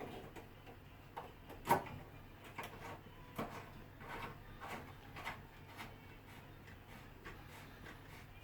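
Faint, irregular small clicks and light rubbing of a cable gland nut being screwed by hand onto an armoured cable gland, with one sharper click a little under two seconds in.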